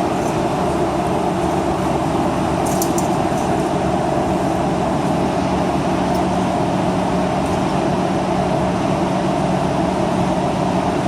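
Steady, loud mechanical drone with a low hum running underneath, and a brief rattle of clicks about three seconds in.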